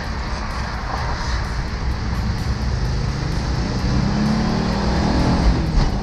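Air-cooled Volkswagen bus engine pulling the bus along, heard from inside the cab with road rumble; about four seconds in, the engine note climbs and grows louder as the bus accelerates.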